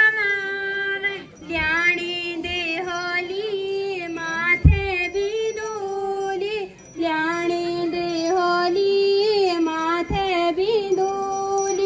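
Group of women singing a Garhwali Jagar together in long, drawn-out phrases, breaking briefly for breath about a second in and again near seven seconds. Two low thumps cut in, the louder about five seconds in and another near ten seconds.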